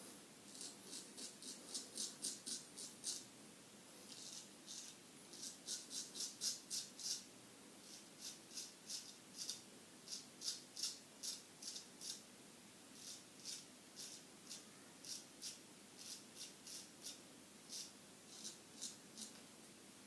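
Straight razor scraping stubble in runs of short, quick strokes, about two to three a second, on a face where the lather has almost disappeared.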